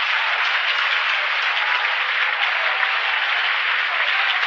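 A large audience applauding steadily. It is heard on a restored vintage recording with almost nothing below the low-mid range.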